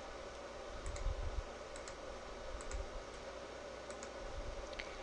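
A few faint computer mouse clicks, spread out one at a time over a steady, faint background noise.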